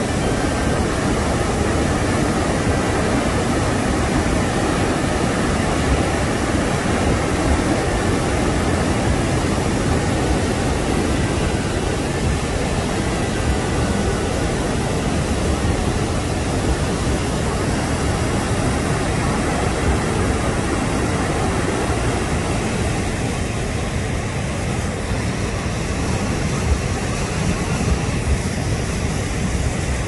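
Flooded river pouring through rocky rapids and falls: a loud, steady rush of churning water with no let-up.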